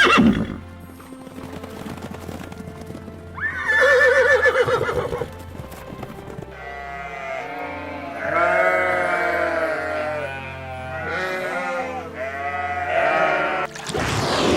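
Background music, with one loud wavering animal bleat from about three and a half to five seconds in.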